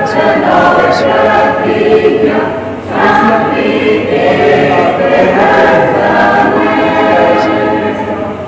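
Mixed choir of women's and men's voices singing a hymn in held phrases, with a short break between phrases about three seconds in.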